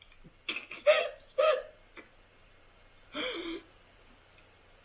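Short wordless vocal sounds from a person: three quick bursts about half a second apart, then a longer one a little past three seconds in.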